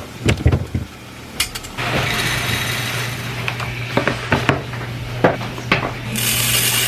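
Glass kitchen storage jars and their lids being handled: a string of sharp clicks and knocks, with a heavy cluster of knocks about half a second in and a steady hiss underneath.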